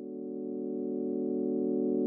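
Computer-synthesised sonification drone: a chord of many steady pure tones on a D Lydian scale, slowly swelling in loudness. Its spectral profile is mapped from the histogram of the red wines' volatile acidity.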